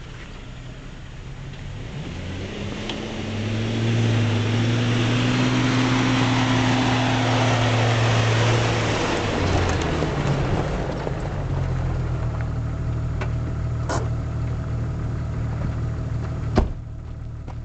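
Jeep Cherokee XJ engine running as it comes down off the rock and drives past close by, with tyres crunching on gravel; loudest about four to nine seconds in, then settling into a steadier, lower drone. A single sharp click near the end.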